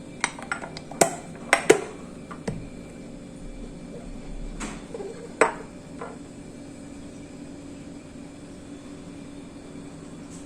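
Kitchenware clinking and knocking: about eight sharp, separate clinks with a short ring in the first six seconds, then only a steady low hum.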